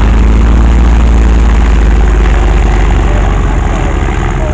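Propeller aircraft's engine running with a loud low drone, loudest in the first second or two and then slowly easing off.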